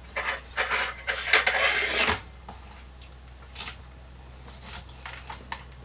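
Forks scraping and clinking on plates and a salad bowl, a busy clatter for the first two seconds, then a few light separate clicks.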